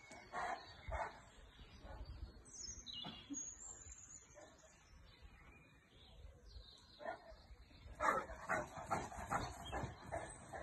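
A dog barking in quick runs, near the start and again about eight seconds in, with birds chirping in between.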